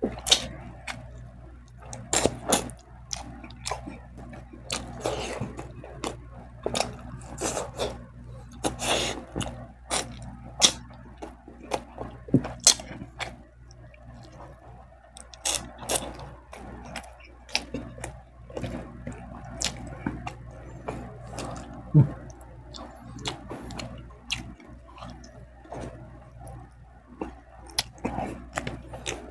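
Close-miked mouth sounds of a person eating rice and fish by hand: wet lip smacks, chewing and sucking at the fingers, coming as irregular sharp clicks every second or so.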